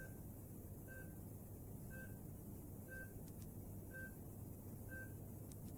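A short, high electronic beep repeating evenly about once a second, over a steady low hum.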